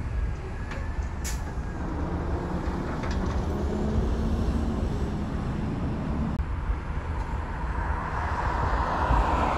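Heavy diesel garbage truck running as it drives past, over a steady low rumble of traffic, with a brief sharp sound about a second in. Near the end a passing car's tyre noise swells up.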